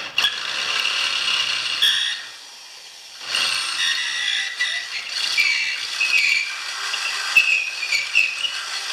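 Corded single-speed electric drill running at full speed, boring a hole with a 5/16 bit. It stops about two seconds in and starts again about a second later.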